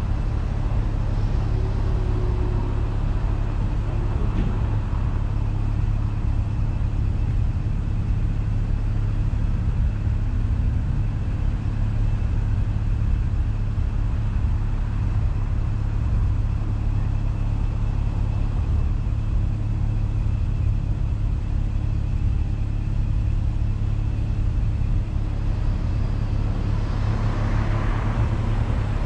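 Car engine idling steadily while stopped, a continuous low hum. Near the end another car passes close by with a brief swell of tyre and engine noise.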